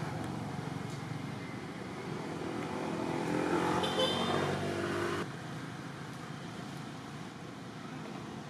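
A motor vehicle's engine passing, growing louder over a few seconds and then breaking off abruptly about five seconds in, over a steady outdoor rumble.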